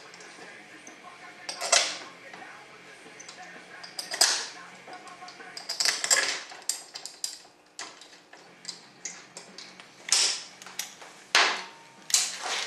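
Metal transmission valve body parts and bolts being handled and set in place on a workbench: a series of sharp clacks and knocks a second or two apart, with lighter clicks between them.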